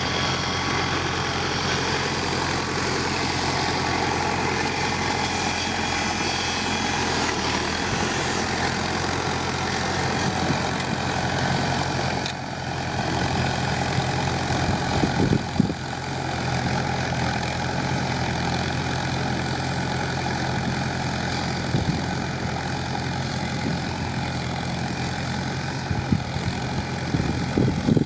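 Engine of a homemade tractor running steadily, with a short dip in level about twelve seconds in.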